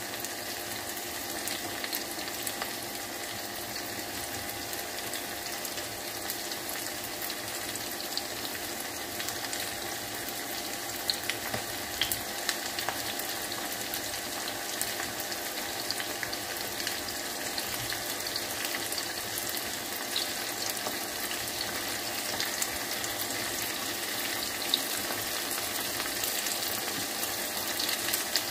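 Boneless chicken pieces in egg and cornflour batter deep-frying in sunflower oil in a kadai: a steady sizzle with scattered pops and crackles.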